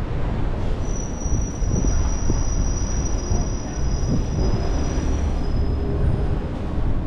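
Street ambience with wind rumbling on the microphone. About a second in, a high, thin, steady squeal starts and holds for about five seconds, with a second, slightly lower tone joining it.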